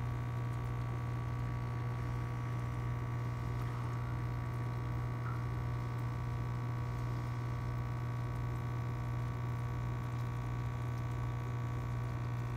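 Aquarium filter pump humming steadily at a low pitch, with faint water trickling and bubbling.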